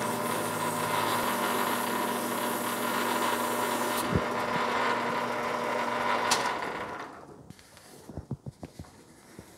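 Metal lathe running steadily, a hum with a hiss from 2000-grit emery paper and oil polishing the spinning workpiece. About six and a half seconds in the lathe winds down and stops, leaving only a few faint clicks.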